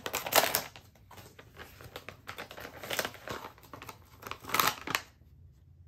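Plastic blind-bag packaging crinkling in irregular bursts as it is squeezed and handled, loudest about half a second in and again near the fifth second, then dying away.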